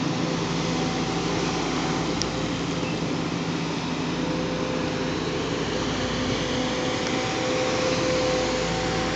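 Diesel engine of an amphibious excavator on pontoon tracks running steadily: a constant low hum under an even hiss.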